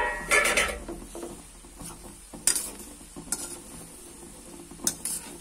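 Metal spatula stirring fried rice in a steel pan, scraping and knocking against the pan in separate strokes, loudest at the start, then about two and a half seconds in, a second later and near the end. A faint steady sizzle from the pan lies underneath.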